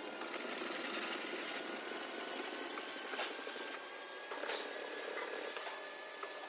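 A power tool running with a fast, even rattle, dipping briefly about four seconds in.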